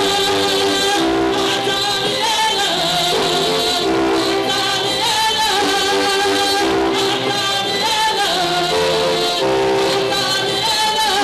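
A worship song: voices singing with held, gliding notes over instrumental accompaniment.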